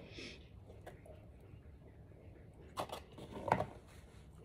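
Quiet room with a low hum and a few short, soft knocks and rustles about three seconds in.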